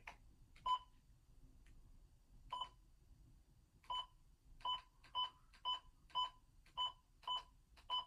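Midland WR-120 weather radio giving about ten short, identical electronic key beeps as its buttons are pressed, spaced irregularly at first, then about two a second from the fourth second on, while the broadcast audio is silent.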